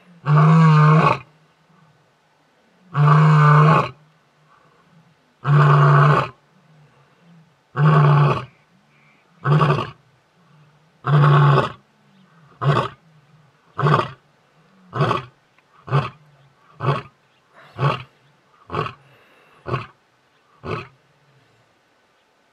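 A male lion's territorial roaring bout, meant to keep rival males away: six long, deep roars about two seconds apart, then about nine short grunts roughly a second apart that grow fainter and stop near the end.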